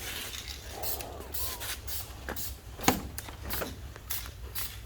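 Aerosol rattle-can spray paint hissing out in a series of short bursts, with a sharp click about three seconds in.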